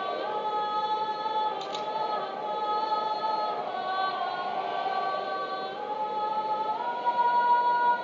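Slow vocal music of long held sung notes that move in small steps, rising to a higher held note about seven seconds in. A brief click sounds about two seconds in.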